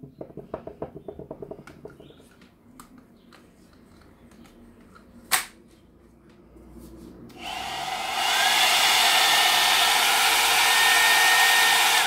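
Plastic clicking as the brush barrel of a rotating hot air brush is handled, with one sharp click about five seconds in. About seven and a half seconds in, the hot air brush is switched on and runs with a loud, steady rush of air and a faint higher motor whine.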